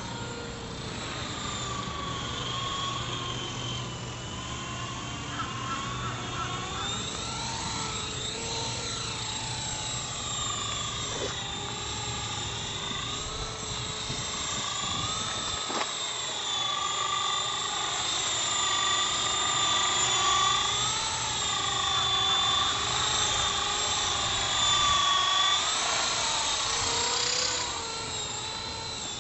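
E-flite Blade CP electric radio-controlled helicopter in flight: a high motor and rotor whine that rises and falls in pitch as it manoeuvres. It grows louder in the second half and drops off shortly before the end.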